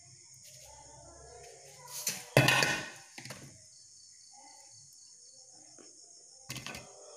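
Kitchen vessels being handled: a sharp clatter about two and a half seconds in, the loudest sound, with smaller knocks around it and another near the end, over a steady high chirping of crickets.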